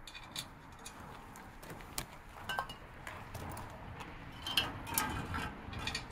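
Metal wrench clicking and clinking against bolts and mounting hardware as a motorcycle skid plate is fastened: irregular sharp clicks, some with a short metallic ring, bunched together about halfway through and again near the end.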